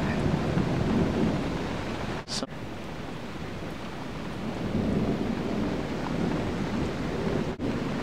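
Thunder rumbling low and continuously over the steady noise of a rainstorm. The sound cuts out briefly twice, about two seconds in and near the end.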